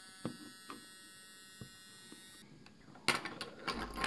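Small handheld pen-style electric mini drill running with a steady high whine while boring pinholes in a plastic battery shell, with a few light clicks. The whine cuts off a little over halfway through, and a clatter of handling noise follows near the end as the battery is picked up.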